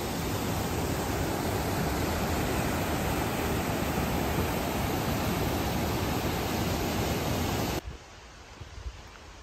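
Steady rush of a forest creek cascading over boulders, a dense, even hiss with a low rumble underneath. It cuts off abruptly about eight seconds in, leaving only faint rustling.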